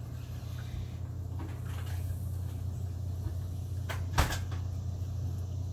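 Steady low hum, with a sharp knock or click, heard twice in quick succession, about four seconds in.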